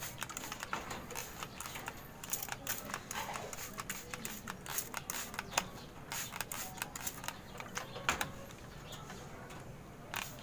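Racing pigeons moving about on wire-mesh perches: many irregular clicks and taps.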